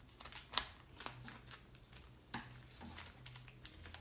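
Scissors snipping through plastic shrink wrap around a workbook: a series of short, sharp snips, the loudest about half a second in and another a little past the middle.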